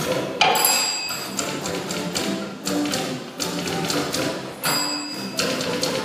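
String ensemble playing while several typewriters are typed along as percussion, their keys clacking in quick runs over the music.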